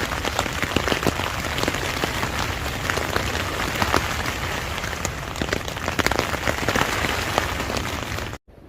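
Steady rain with many sharp drop strikes close to the microphone, cutting off suddenly near the end.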